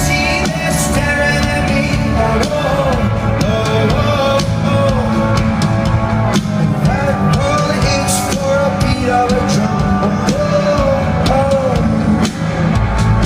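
Rock band playing live, with a male lead singer over drums, bass and guitars.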